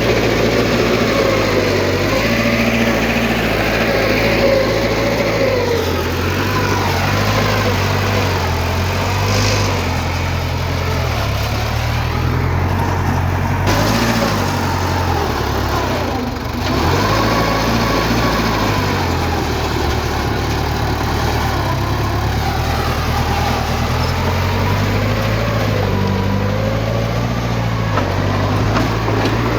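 Diesel engine of heavy earthmoving machinery running continuously, its pitch rising and falling every few seconds as it revs up and eases off under changing load, with a brief drop about halfway through.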